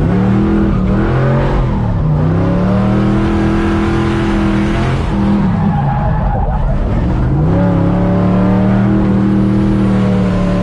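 Drift pickup truck's engine heard from inside the stripped cabin under way: the revs climb, hold steady, fall away twice (about two and six seconds in), then climb back and hold.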